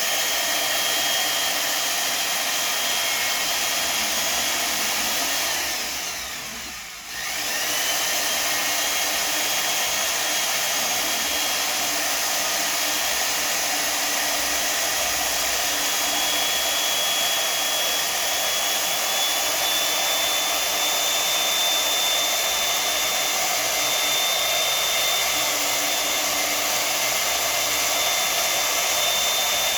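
Electric power tool spinning a cleaning rod wrapped in paste-soaked polishing cloth inside an airsoft inner barrel, running steadily with a high motor whine. About six seconds in it slows and dips briefly, then spins back up to speed.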